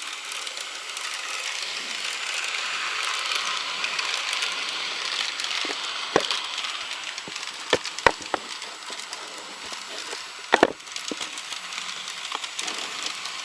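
Battery-powered N gauge model ICE train running on plastic track, its small motor and wheels making a steady whirring hiss that swells a couple of seconds in and then fades. Several sharp clicks come in the middle, including a quick double click about two-thirds of the way through.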